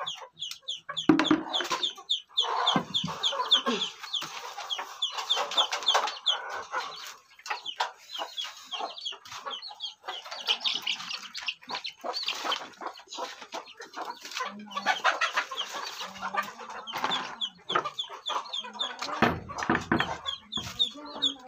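Chickens clucking, with many short, high calls repeated throughout. A brief, loud knock or rattle comes near the end.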